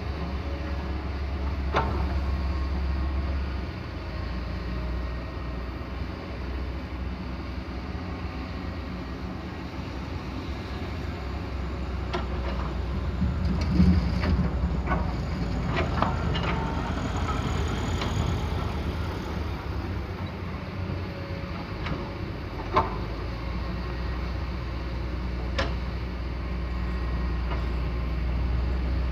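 Hydraulic excavator's diesel engine running steadily, with a few sharp knocks scattered through, loudest about halfway through.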